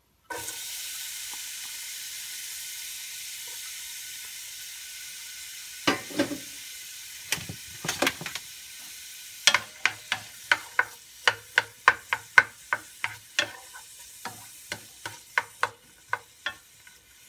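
Chopped onion sizzling in hot oil in a stainless steel skillet, the sizzle starting suddenly as the onion goes in and slowly fading. From about halfway, a utensil scrapes and knocks against the pan in a quick regular run as the onions are stirred.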